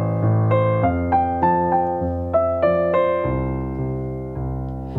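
Piano playing a slow song introduction: chords and melody notes struck a few times a second, each ringing and fading over held bass notes, with a new low bass note about three seconds in.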